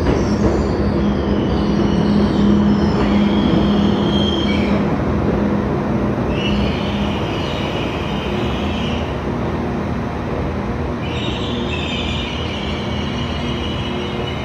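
Diesel train running through the station, its engine rumbling with a steady low hum. The wheels squeal against the rails three times, each lasting a few seconds.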